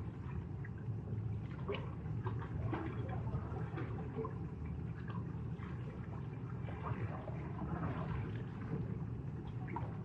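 Small sea waves washing and lapping at the shore: a steady low wash with many small splashes and trickles scattered through it.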